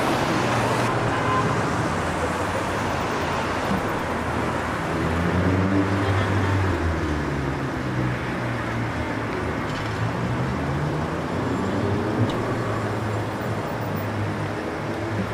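Street ambience: a steady wash of road traffic noise with a low engine hum, and faint voices in the background.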